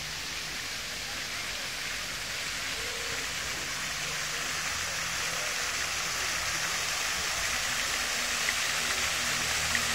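Steady rush of running, splashing water, growing gradually louder, with a few faint ticks near the end.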